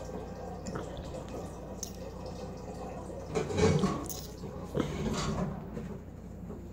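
Rustling handling noise from a hand close to the recording device's microphone, in two short bursts about halfway through, over a steady low hum.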